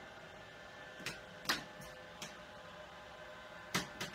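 Quiet steady hum with a few faint steady tones, broken by about six short sharp ticks in two clusters, the loudest about one and a half seconds in.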